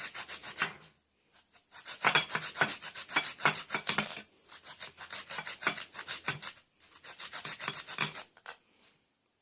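Radish being rubbed back and forth over a hand grater: quick rasping strokes, about six a second, in several runs with short pauses, stopping shortly before the end.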